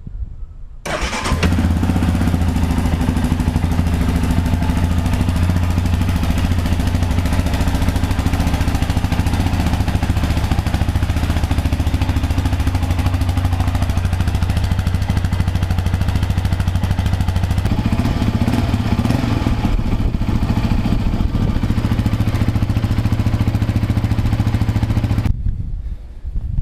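2007 Yamaha Raptor 700 ATV's single-cylinder engine on its stock exhaust, starting up about a second in and idling steadily. Its pitch steps up slightly about 18 seconds in, and it stops abruptly near the end.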